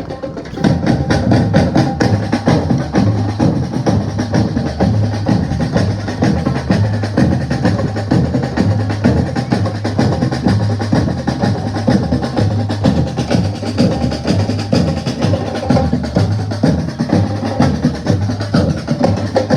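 Percussion music: drums playing a fast, dense rhythm over a steady repeating low beat.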